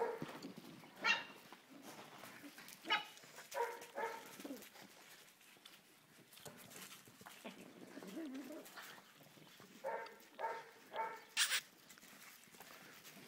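Puppies barking in short, pitched yaps: a few scattered over the first seconds, then four in quick succession near the end, the last the loudest.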